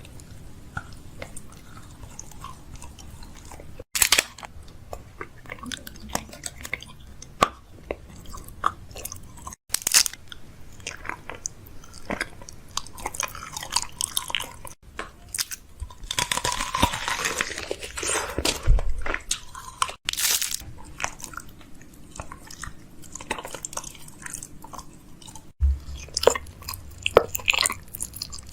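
Crunchy chewing and biting, with irregular crackling clicks, broken by abrupt cuts every few seconds.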